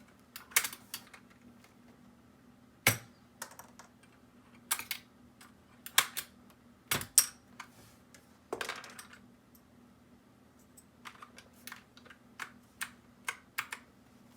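Keys of a Keychron K6 mechanical keyboard with clicky blue switches pressed one at a time in an irregular run of sharp clicks, with a pause of about two seconds in the middle.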